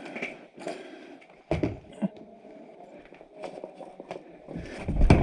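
Footsteps and gear-handling noise of a person moving, with scattered knocks and clicks, two sharper thumps about a second and a half in, and a heavier thump near the end.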